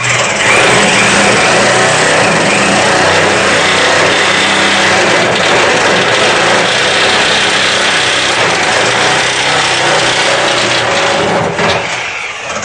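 Power tool cutting through a bolt that holds the gas tank. It starts abruptly, runs loud and steady, and tapers off near the end.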